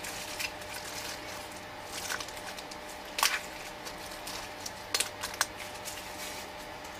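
Faint steady room hiss with a few scattered short clicks and knocks from small objects being handled.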